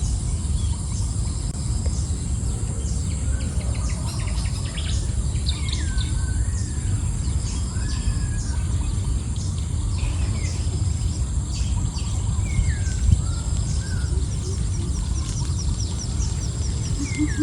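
Birds calling in slurred, gliding whistles and short repeated chirps over a steady high-pitched insect drone, with a constant low rumble underneath. Near the end a low pulsing call starts, about four pulses a second.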